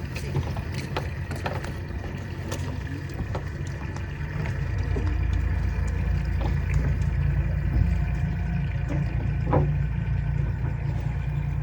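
A boat engine running at idle, a steady low rumble that gets louder about halfway through, with a few light knocks.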